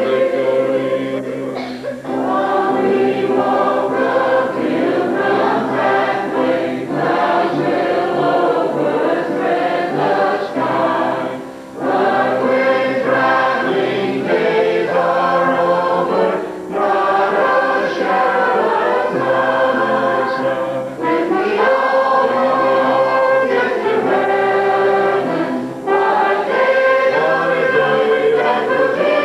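Church congregation and choir singing a hymn together, in sustained phrases with brief breaks between them.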